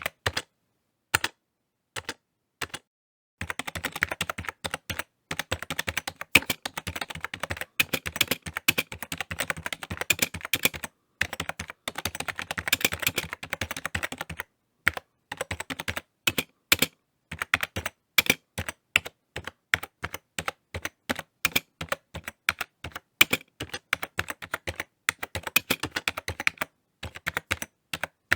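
Typing on a computer keyboard: fast runs of key clicks in bursts, broken by short pauses of about a second.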